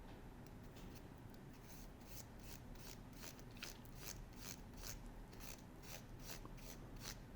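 Faint, quick rasping strokes on the teeth of a laser-cut wooden clock gear, about two to three a second, starting about two seconds in: high spots on the teeth being cleaned up by hand.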